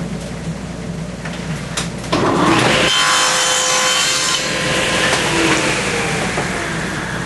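Table saw running, its blade tilted to cut the angled face of a wooden block: the cut starts about two seconds in with a sudden loud rise and eases off over the last couple of seconds.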